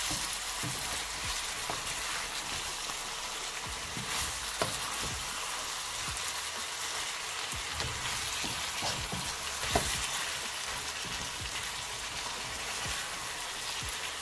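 Chicken pieces with onions, leeks and carrots sizzling in a non-stick pan as they are stirred with a wooden spatula, a steady frying hiss. Two sharp knocks of the spatula on the pan, about four and a half and ten seconds in.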